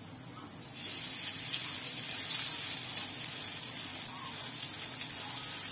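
Oil in a frying pan sizzling as a spoonful of wet grated potato batter for a potato pancake goes into it. The sizzle starts sharply about a second in and then holds steady. The oil is strongly heated.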